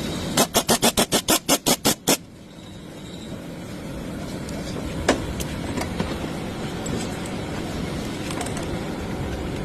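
A ratchet wrench clicking rapidly about a dozen times, about six clicks a second, during work on a car's alternator. Then a steady low mechanical noise that slowly grows a little louder.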